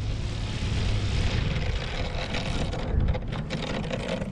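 Radio-controlled model aeroplane flying, its motor and propeller making a steady drone over a low, uneven rumble.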